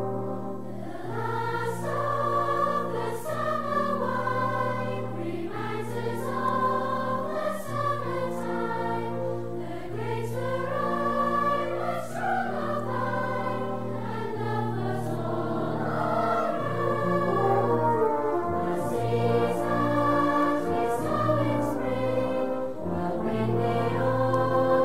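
Background music: a choir singing sustained, slowly moving lines over orchestral accompaniment with brass.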